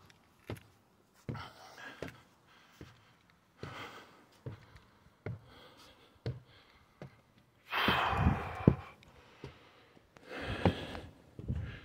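Footsteps climbing wooden outdoor stairs, a knock about every second, with heavy breaths from the climber, the loudest a long puff about eight seconds in and another near the end.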